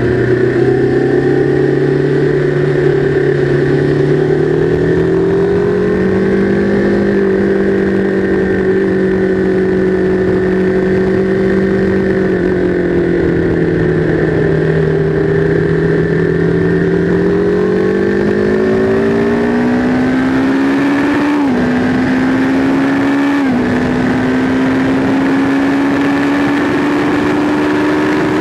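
Sport motorcycle engine heard from onboard at track speed, its pitch rising and falling with the throttle through the corners in third gear. Two quick upshifts, about 21 and 23 seconds in, each drop the pitch suddenly before it climbs again as the bike accelerates onto the straight.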